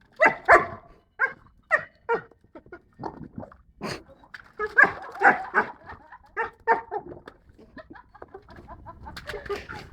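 Dog vocalising with its muzzle in a water tank, short bark-like grunts turned into gurgling, bubbling noises by the water, in irregular bursts.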